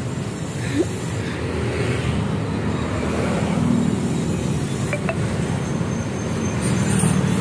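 Steady low rumble of passing road traffic, swelling slightly near the end, with two faint metallic clinks about five seconds in.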